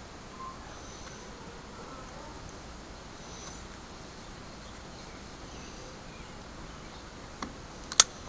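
Utility knife razor blade carving chips out of a wooden walking stick: faint scraping over a steady hiss with a thin high whine, then a few sharp clicks near the end as chips are cut free.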